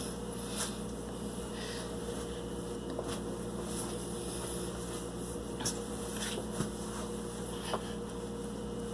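Steady low hum of room noise, with three faint clicks in the second half.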